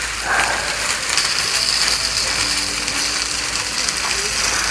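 Herb salt being ground from a twist grinder, a run of rapid ratcheting clicks, over lamb ribs sizzling on a cast-iron grill pan.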